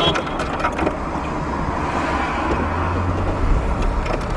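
Car engine running, heard from inside the cabin, with a low rumble that grows about three seconds in as the car creeps forward. A few light clicks come near the start.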